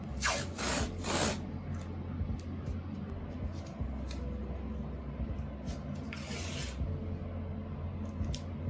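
Hands working on a mechanical keyboard during assembly: three short rasping, rubbing bursts in quick succession just after the start and another about six seconds in, with small clicks and taps of parts being handled in between.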